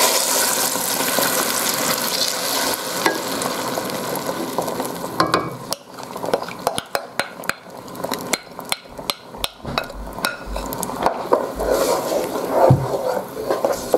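Tomato purée poured into hot oil and mustard seeds in a saucepan, with a loud sizzle at the start that dies down over the first few seconds. Then a wooden spoon stirs the purée, with many small clicks and knocks against the pan.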